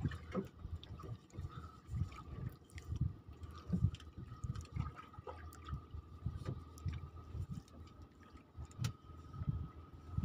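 Water sloshing and lapping against a small outrigger boat's hull in uneven low bumps, with a few light knocks as the speared fish and gear are handled on deck.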